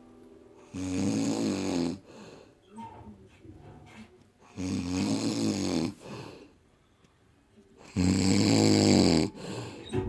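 A man snoring: three long, loud snores, each a little over a second, about three and a half seconds apart, with quieter breathing between.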